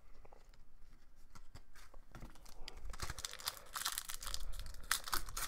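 A foil wrapper of a 2019/20 Upper Deck Series 1 hockey card pack being torn open: light handling noise at first, then ripping and crinkling of the wrapper from about three seconds in.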